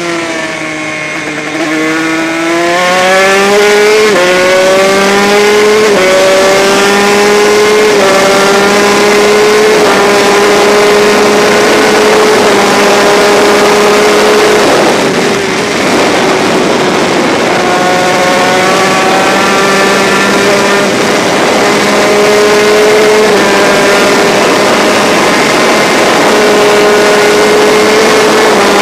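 Honda RS125 two-stroke single-cylinder race engine, heard onboard at speed. Its pitch dips briefly at the start, then it accelerates hard, climbing and dropping back through a quick run of upshifts. After a short lull in the middle it pulls up through the gears again.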